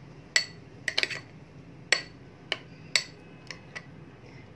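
A metal spoon stirring thick yogurt raita in a glass bowl, clinking against the glass about once every half second, each clink ringing briefly.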